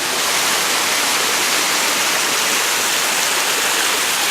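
Water of a small rainforest waterfall rushing steadily, a loud, even hiss.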